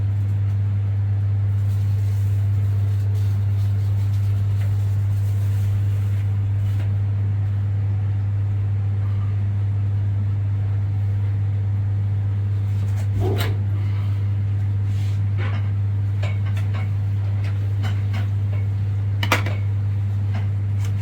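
Microwave oven running, its high-voltage transformer giving a loud, steady mains hum with a few small clicks and knocks.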